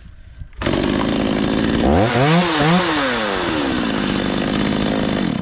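Stihl 023 two-stroke chainsaw engine running with its fuel line newly replaced. It comes in suddenly, is revved up twice in quick succession about two seconds in, then settles back down in pitch.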